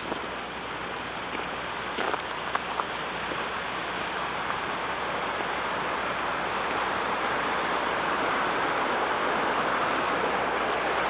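Rushing water of a stream running high, a steady hiss that grows slowly louder, with a few light clicks in the first three seconds.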